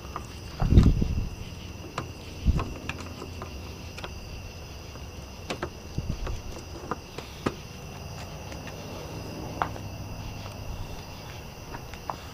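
Scattered clicks and knocks of hands fitting a replacement LED bulb into a vehicle's corner light, with a heavier thump about a second in. A steady high-pitched drone runs underneath.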